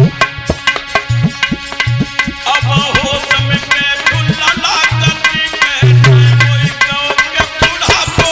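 Instrumental devotional music: a fast hand-drum rhythm of the tabla kind, with deep bass strokes that bend upward in pitch, over sustained melodic tones.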